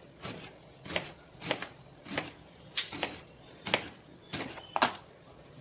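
Knife cutting thick slices from a raw green plantain, each stroke ending in a sharp tap on a plastic cutting board, about one cut every half second or so.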